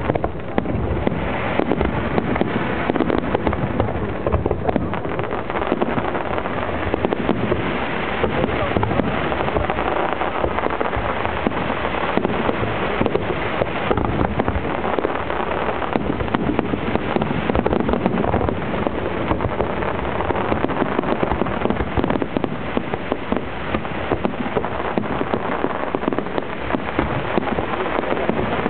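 A fireworks display: a dense, unbroken run of bangs and crackles from many bursts going off close together.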